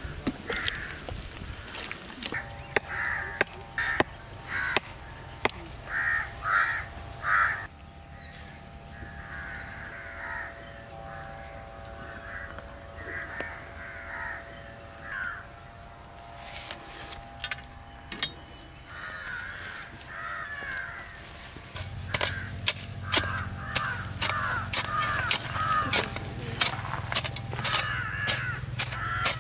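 Crows cawing repeatedly in short runs of calls. In the last part, a quick series of sharp knocks joins in.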